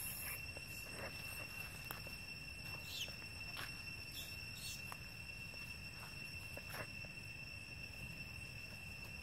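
Steady high-pitched insect drone, with a few short ticks and brief chirps scattered through it.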